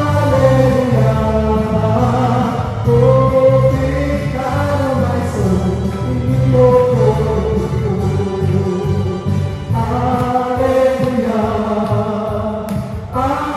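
Live praise and worship band: a lead singer and backing vocalists singing long held notes over bass guitar and keyboard.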